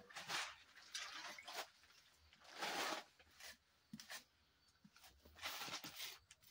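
Wet clay being rubbed and smoothed by hand over the top of a mud cookstove: four or five soft scraping strokes, with quiet gaps between them.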